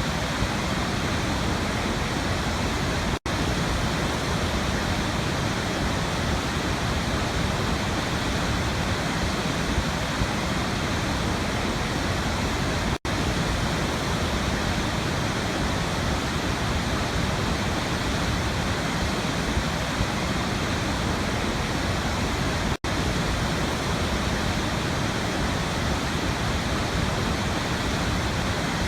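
Waterfall rushing in a steady, dense roar of falling water, broken by three brief dropouts about ten seconds apart.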